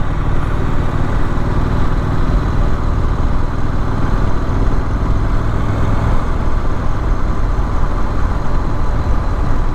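Triumph Street Scrambler's 900 cc parallel-twin engine running steadily while riding, under a constant rush of wind and road noise.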